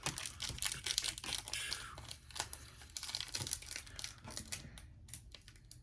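Foil Pokémon booster pack wrappers crinkling and tearing as they are ripped open, a crackly sound likened to a bag of chips. The crackling is dense for the first four seconds or so, then thins out near the end.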